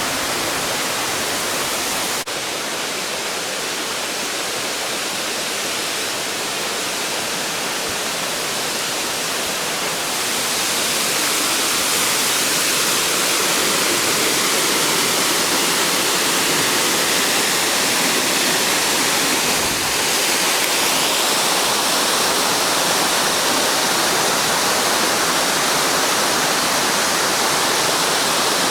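Waterfall, a steady rush of falling water that grows a little louder about ten seconds in.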